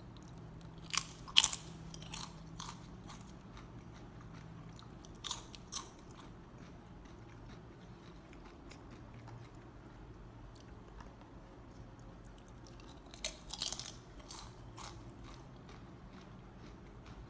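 Thin-sliced Jack 'n Jill BBQ potato chip being bitten and chewed: sharp crunches in short clusters, about a second in, again around five seconds, and once more near fourteen seconds.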